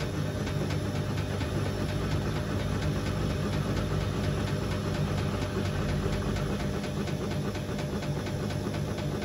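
Hotpoint Ultima Extra WMA64 front-loading washing machine running mid-wash on its newly fitted motor: a steady motor hum with a faint, rapid regular ticking over it.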